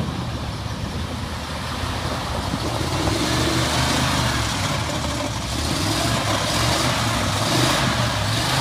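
Engine of a 1990s Ford F-series pickup running and revving as the truck drives out of a mud hole, growing louder from about three seconds in.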